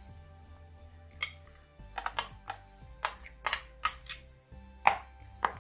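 Steel spoon clinking and scraping against a ceramic bowl as soaked bread is knocked out of it: about ten sharp knocks at uneven intervals, some with a brief ring, the loudest near the end. Soft background music runs underneath.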